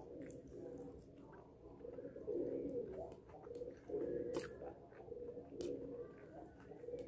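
A dove cooing over and over, its low hooting coos coming about once a second. Faint clicks and chewing come from food being eaten by hand.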